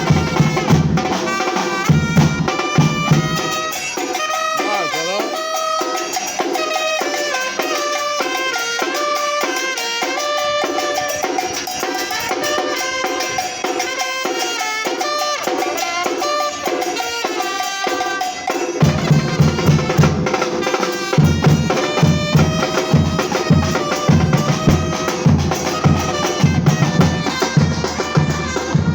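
Batucada percussion ensemble playing a rhythm. The deep bass drums drop out about four seconds in, leaving the higher drums and a pitched melody, and come back in around nineteen seconds.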